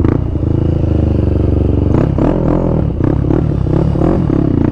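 Honda CG 160 Start motorcycle with a 410cc single-cylinder engine running at low revs, its note wavering up and down a little from about halfway through.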